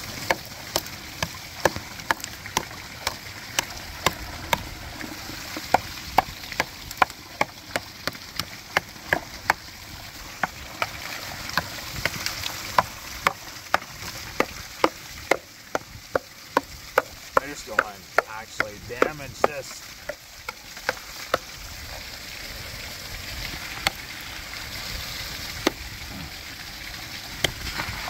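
A steel hammer striking and chipping the thick ice built up on a pond waterfall: sharp strikes, about two a second, over the steady rush of falling water. The strikes stop about three quarters of the way through, leaving only the water running.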